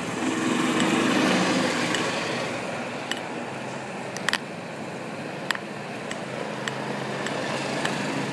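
A necklace pendant tapping against the recording device held to the chest, a sharp tap about every second, over a steady wash of wet-street noise. A vehicle engine runs close by in the first two seconds.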